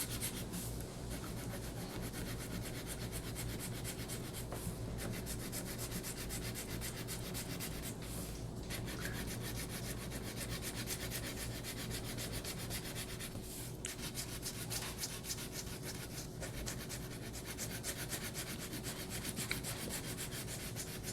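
Crayon rubbed rapidly back and forth on paper while colouring in, a steady run of quick, even strokes.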